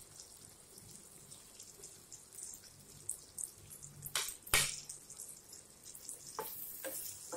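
Sliced onions sizzling faintly in hot butter and oil in a frying pan, with two sharp knocks a little over four seconds in and light stirring scrapes near the end.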